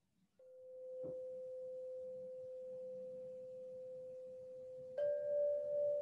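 A sound-healing instrument ringing one pure, steady tone that swells up in its first second. About five seconds in, a second, slightly higher tone is struck on top, and the two together waver slowly in loudness.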